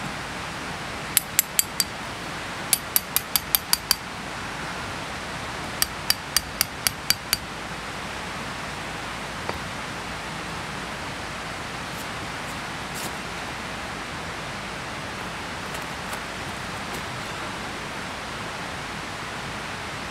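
Tent pegs being hammered into the ground: three quick runs of ringing hammer strikes, about four a second, with a single tap a couple of seconds later. Behind them is a steady rushing background.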